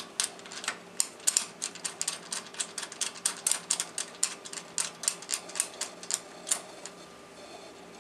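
Rapid, irregular small metal clicks and ticks as small metal pieces are turned and screwed in by hand on a ravioli machine's attachment plate; the clicking stops about six and a half seconds in.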